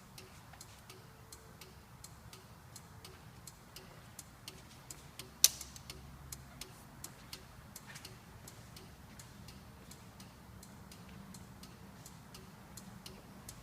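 Motorcycle turn-signal flasher ticking steadily as the indicators blink, with one sharper click about five and a half seconds in.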